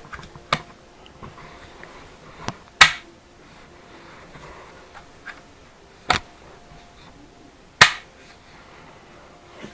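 Scattered sharp clicks and knocks, six or so a second or two apart, the loudest about three seconds in and near the end: a pair of new skis and their bindings being handled while the bindings are fitted.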